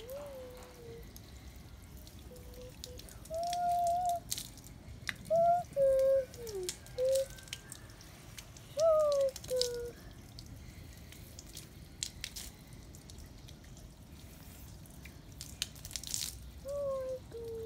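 Rainwater dripping and ticking onto a wet concrete surface. A series of short pitched calls that slide up and down in pitch stands out above it, loudest in the first half and again near the end.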